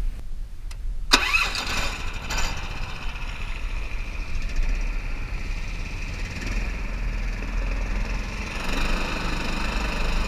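Small air-cooled long-shaft mud motor on a jon boat starting about a second in, revving up briefly, then running steadily. A hiss of water spray grows louder near the end as it drives the boat.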